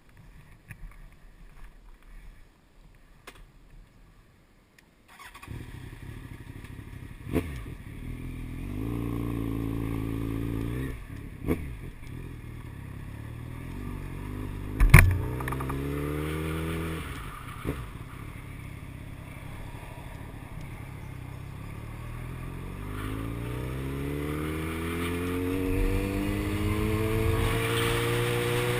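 Yamaha FZ1 motorcycle's inline-four engine starts about five seconds in, after some quiet handling clicks. It idles briefly, then pulls away, rising in pitch again and again as it accelerates through the gears. There is a sharp knock about fifteen seconds in.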